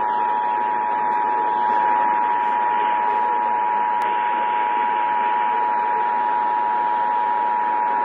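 Emergency Alert System two-tone attention signal, about 853 and 960 Hz sounding together, held steady over AM radio hiss from a Sangean portable radio's speaker. It cuts off sharply about eight seconds in.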